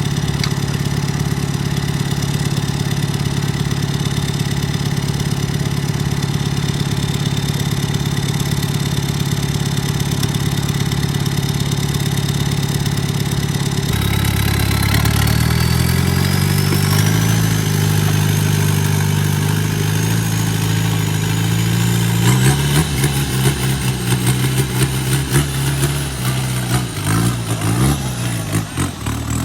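Off-road 4x4 competition truck engine running steadily. About halfway through, the sound changes abruptly to the engine working under load, with a high whine climbing steadily in pitch. Near the end the revs rise and fall unevenly.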